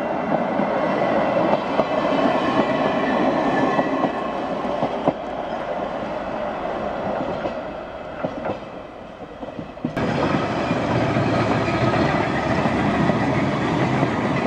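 Manx Electric Railway tramcars rolling along the rails, steel wheels clattering over the track. It dips between about seven and ten seconds in, then is louder again as a works car and an open trailer pass close by.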